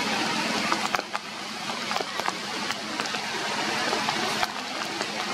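Steady rain falling on forest leaves: a constant hiss dotted with many sharp drip ticks.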